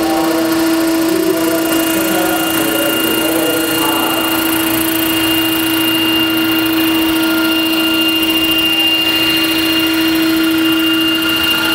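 Large scale RC model helicopter running up and lifting into a hover: a steady drive whine and rotor hum, with a higher steady whine joining about three seconds in.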